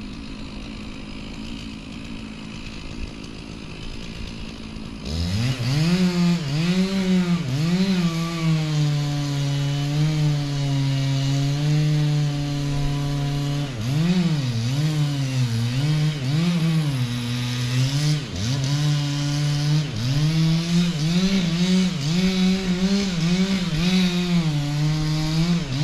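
Gas chainsaw revving up about five seconds in and cutting into a large cottonwood trunk, its pitch repeatedly dipping under load and climbing back.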